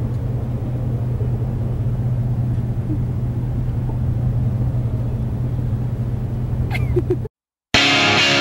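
Steady low rumble of city street traffic. After a brief silent cut near the end, loud rock music with distorted electric guitar starts.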